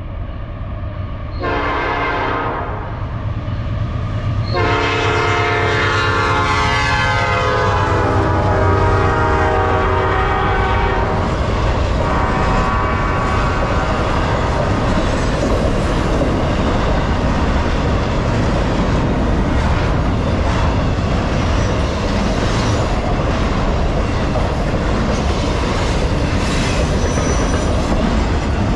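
Horn of a Norfolk Southern freight train's GE Dash 9-44CW lead locomotive: a short blast, then a long blast lasting several seconds, over diesel engines running hammered down at full throttle. The horn fades out about eleven seconds in, leaving the steady rumble and clickety-clack of intermodal container and trailer cars rolling past at about 46 mph.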